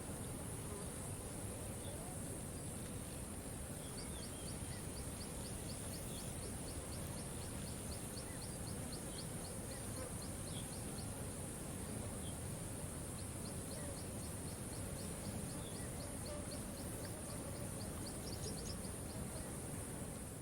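Riverside ambience: a steady high insect hum over a low steady rumble, with a rapid ticking call of about four clicks a second that runs for several seconds, pauses, then starts again, and a few faint scattered chirps.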